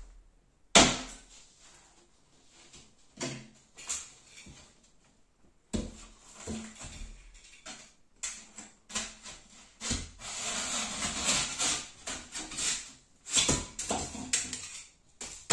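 A plasterboard offcut being handled and cut by hand. There is a sharp knock about a second in and scattered bumps and scrapes of the board, then from about ten seconds in a few seconds of continuous rasping as a utility knife slices through the board's paper.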